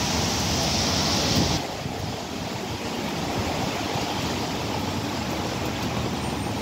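Rain and car tyres hissing on a wet road, a steady noisy wash. It drops and changes abruptly about a second and a half in.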